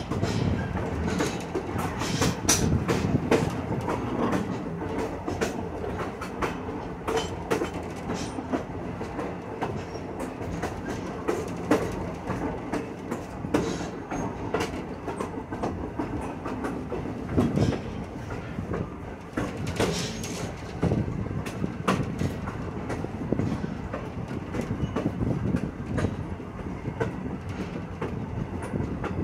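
Passenger railroad car rolling along the track, heard from aboard: a steady rumble of wheels on rail with irregular clicks and clatters over joints.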